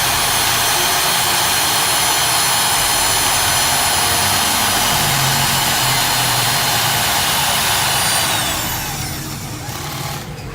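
Magnetic drill motor running at full speed with a high steady whine while a 20 mm bit bores through 20 mm-thick steel. About eight seconds in it is switched off and the whine falls as the motor spins down.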